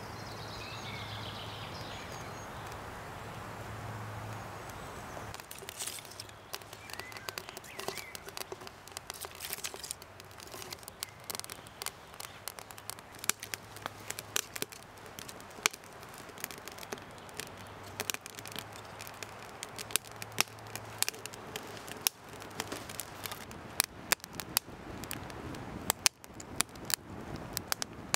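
Wood fire crackling inside a Swedish torch log stove as the kindling catches: sharp snaps start about six seconds in and grow denser and louder as the fire takes hold.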